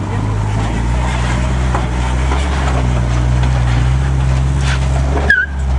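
Jeep engine running at low revs in a steady low rumble, rising slightly about halfway through, then cutting out briefly near the end.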